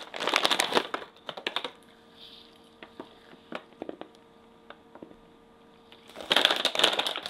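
A crinkly plastic candy bag rustling as it is handled, in a burst in the first second and again near the end, with faint scattered clicks in the quiet stretch between.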